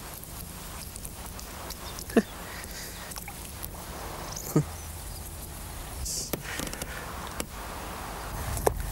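Handling noise from a fishing pole being worked by hand: three short sharp knocks, about two, four and a half and eight and a half seconds in, over a low steady hum.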